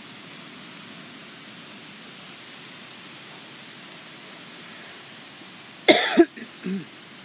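Steady background hiss, then about six seconds in a short, loud vocal burst from a person, like a cough, followed by two smaller ones.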